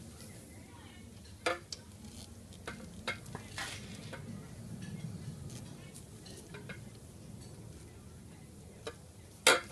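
Scattered light knocks, clicks and scrapes as gloved hands handle the intercooler and parts in a car engine bay, with a sharper knock near the end, over a low steady background hum.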